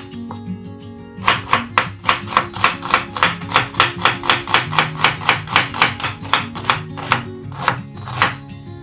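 Chef's knife chopping an onion on a bamboo cutting board: rapid, even strokes about three a second starting about a second in, then two slower strokes near the end.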